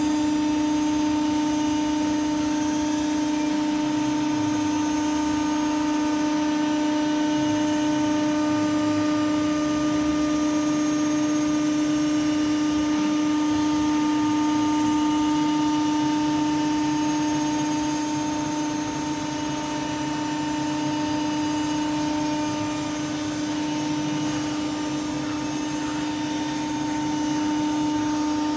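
Masterwood Project 317 CNC router running, a steady machine whine with a constant pitch and no cutting strokes, easing slightly in level about two-thirds of the way through.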